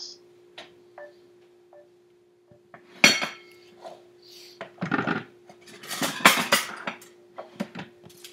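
Pots, pans and cutlery clattering: a few light clinks, then louder clattering in several bursts from about three seconds in.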